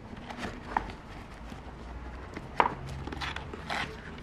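Small items being handled in a desk drawer: a scattering of light clicks and taps as tape rolls and sticky-note pads are picked up and knock against the drawer and its plastic trays.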